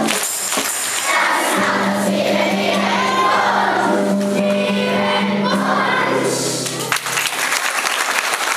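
A hall full of children singing together to music. The song stops about seven seconds in and clapping breaks out.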